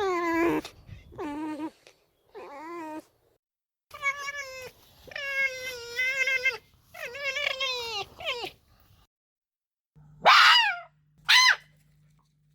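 Red fox calling: a run of whining, wavering yowls that bend up and down in pitch. After a short break, two louder, harsher screams come near the end.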